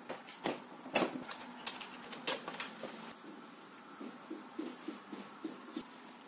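Sharp little plastic clicks and knocks as a charger plug with a Bluetooth receiver is handled and plugged into a socket. Then, from about four seconds in, a run of soft fingertip taps on a phone screen.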